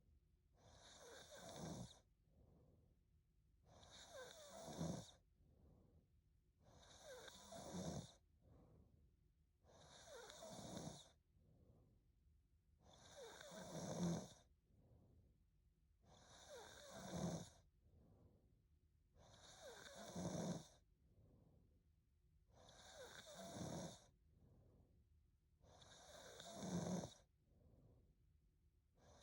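A woman snoring faintly in her sleep: a slow, even rhythm of about nine snores, one every three seconds or so, each swelling and then stopping abruptly.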